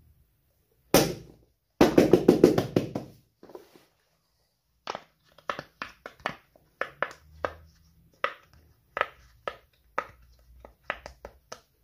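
A strawberry-shaped silicone pop-it fidget toy having its bubbles pressed one at a time, giving separate sharp pops roughly twice a second. Before the popping starts there is one loud snap about a second in, then a quick flurry of louder rubbery strokes lasting about a second and a half.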